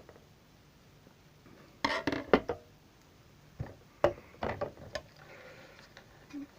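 Clicks and knocks of small hard objects being handled on a hard surface, in two clusters about two seconds in and again around four seconds in.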